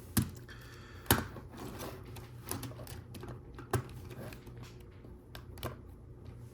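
LEGO Technic plastic parts being handled: scattered sharp plastic clicks with light rattling between them, the two loudest clicks in the first second or so.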